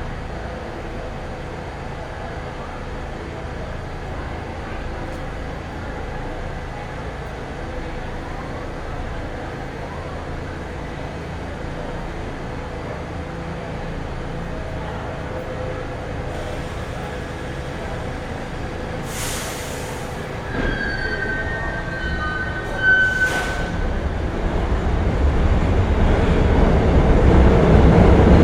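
Underground subway platform ambience: a steady low rumble. About two-thirds through, a train's wheels give a high metallic squeal for a couple of seconds between two short hisses, then a train's rumble swells steadily louder toward the end as it approaches.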